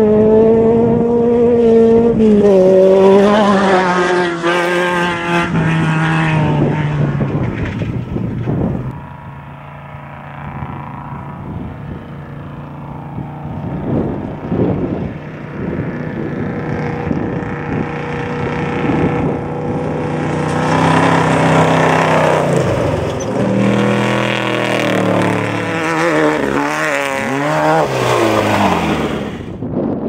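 Off-road desert race trucks' engines revving hard as they run past, pitch rising and falling as they accelerate and lift. Loud in the first several seconds and again from about twenty seconds in, quieter and steadier in between.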